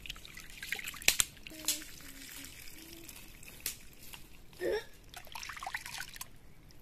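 Rice being washed by hand in a steel pot: water sloshing and swishing as the grains are rubbed, and the rinse water poured off and trickling out. A few sharp clicks, the loudest a pair about a second in.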